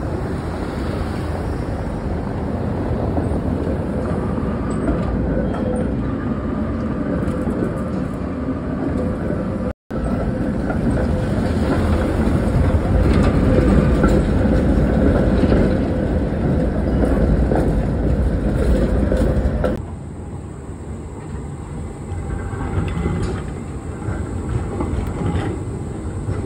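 Prague trams passing close on street track: a steady rumble of steel wheels on the rails with a faint held hum. It is loudest in the middle stretch, as an old red-and-cream Tatra tram goes by, and quieter after about twenty seconds. The sound cuts out for a moment just before ten seconds in.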